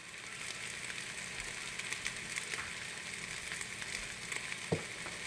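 Food sizzling steadily on a hot cooking surface, with faint crackles and one light knock near the end.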